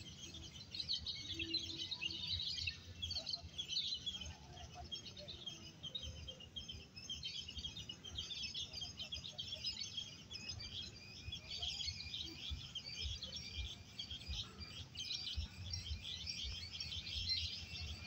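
Many caged songbirds chirping and singing at once in a dense, unbroken chatter, over a low rumble.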